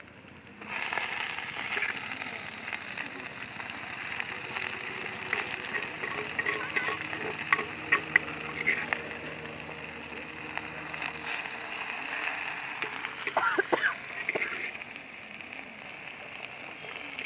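Fresh drumstick (moringa) leaves going into hot oil with fried onions and red chillies in a metal pot, setting off a sudden loud sizzle about a second in that carries on as steady frying, with scattered sharp pops and clicks of spattering oil and stirring.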